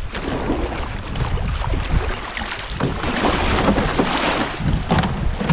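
Water rushing over a shallow river riffle, with wind buffeting the microphone and a canoe paddle splashing now and then.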